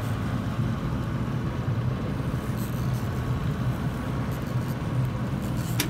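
Boat engine running steadily under way at trolling speed, a constant low hum with water and wind noise over it. A single sharp click just before the end.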